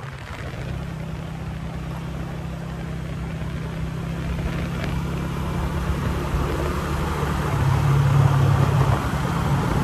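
Motorcycle engine running steadily while riding, with road and wind rush; the engine hum grows louder toward the end.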